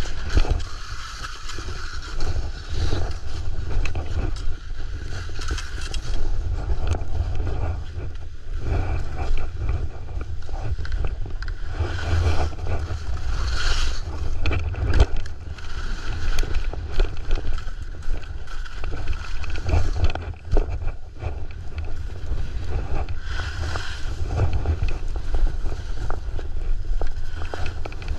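Skis sliding and carving over snow: a rough scraping hiss that swells and fades over and over, under a steady low rumble of wind buffeting the GoPro's microphone.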